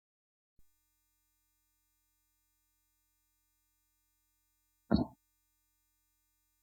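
Near silence with a faint steady hum, broken once about five seconds in by a single brief vocal sound from a person.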